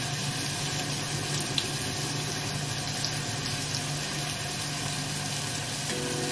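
Steady rushing noise with a low hum, like running water, with a few faint clicks from a knife peeling a potato.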